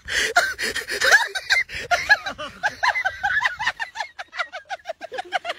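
A person laughing hard: a long, unbroken run of quick, high-pitched ha-ha pulses, about five or six a second.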